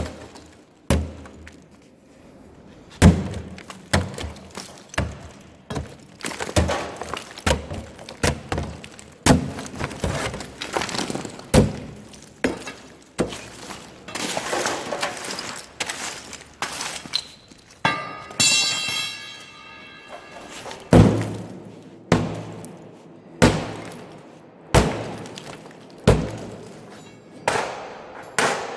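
Repeated strikes breaking up the brittle fireproofing lining of an old safe, crunching and clinking, about one blow every second or so, with a brief metallic ringing about 18 seconds in.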